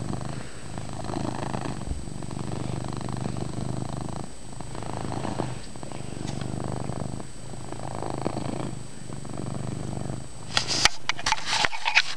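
Domestic cat purring loudly at close range, in steady cycles that swell and ease about every second and a half with each breath in and out. Near the end comes a short burst of rustling and clicks.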